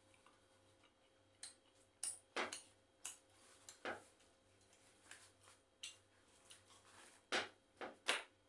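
Eating sounds: irregular short smacks and clicks of chewing, with Arabic flatbread (khubz) being handled and torn by hand. The loudest smacks come near the end.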